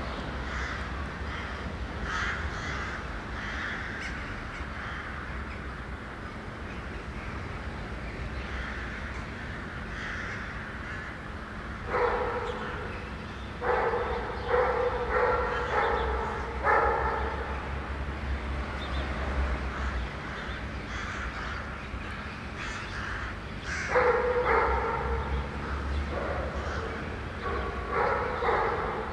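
Steady low rumble of wind and road noise from travelling along the road, with runs of short, harsh animal calls repeating from about twelve seconds in and again near the end; the calls are the loudest sound.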